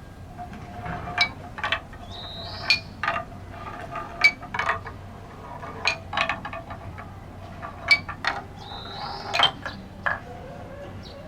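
Wooden balls rolling down a wooden marble-run stair course, dropping from step to step with irregular sharp wooden knocks and clicks, and a faint rolling rumble between them. Twice a short rising whir is heard.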